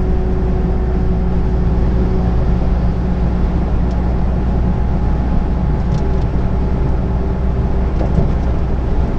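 Heavy truck cruising at motorway speed, heard inside the cab: a steady diesel engine drone under even tyre and road noise.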